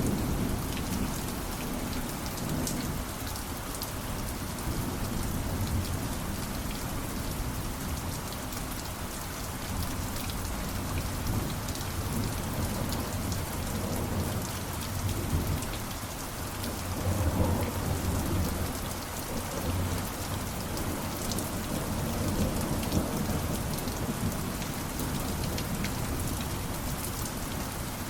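Steady rain falling on a surface, with low rolling thunder underneath that swells louder about two-thirds of the way through.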